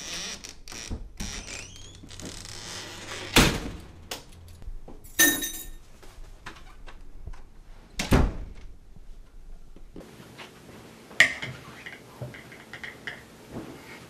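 Household knocks and thuds, like a door being shut and things being set down: a string of sharp knocks, the loudest about three and eight seconds in, with a short ringing rattle about five seconds in, keys dropped into a glass bowl.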